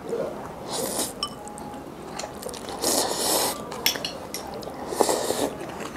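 Metal utensils clinking and scraping against a dish in three brief bursts, with a few sharp clinks between them, while Chinese cold noodles are dressed and mixed.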